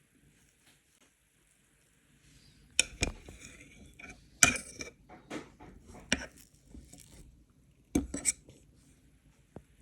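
Cutlery and dishes clinking and clattering: a scattered run of sharp knocks, like a fork or spoon against a plate, starting about three seconds in, with the loudest clatters near the middle and again near the end.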